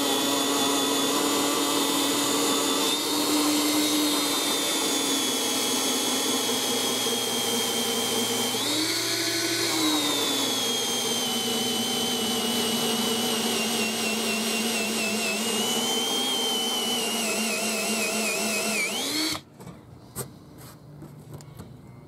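Cordless drill turning a hole saw slowly through the plastic wall of a fuel tank. It gives a steady motor whine that speeds up briefly about nine seconds in, then cuts off suddenly near the end.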